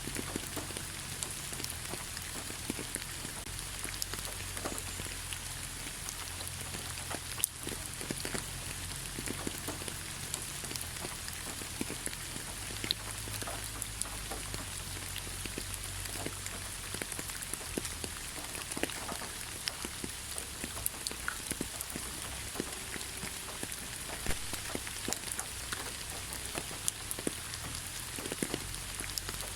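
Steady light rain falling on leaves, with many separate drops pattering at random.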